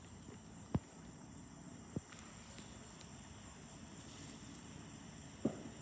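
Faint, steady chirring of crickets, with three short clicks or knocks spread through it.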